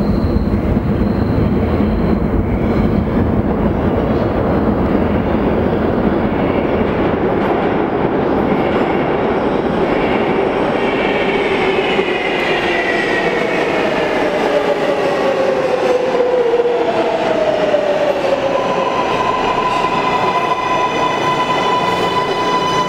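New York City subway L train pulling into an underground station, with steady loud rail and wheel noise. From about halfway, a motor whine falls in pitch as the train brakes, and a steady high tone follows near the end as it slows along the platform.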